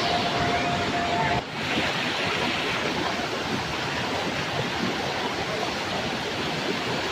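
Steady rush of water falling at a waterfall. A thin steady tone runs over it for about the first second and a half, then stops with a short dip in the sound.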